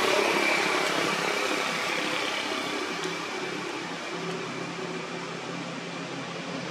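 Motor vehicle running in the background: a steady rushing noise with a low hum, slowly fading.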